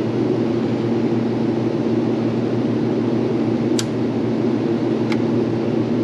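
Makeup air unit's blower running with a steady low hum. A sharp click comes about four seconds in, and a fainter one about a second later.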